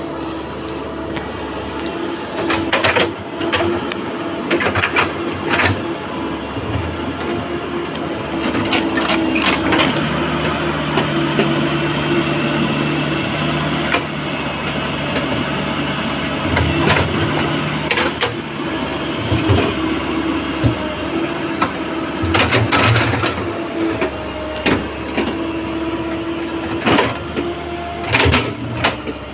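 Backhoe diesel engine running steadily under load, its pitch shifting slightly as it works, with repeated sharp metallic clanks from the machine throughout.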